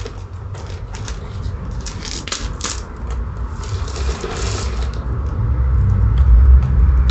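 Metal roller chain links clicking and clattering as a new motorcycle drive chain, joined to the old one, is fed around the sprocket while the old chain is drawn off. A low rumble builds through the second half.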